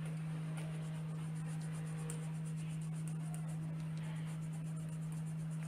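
Coloured pencil scratching faintly on paper over a steady low hum.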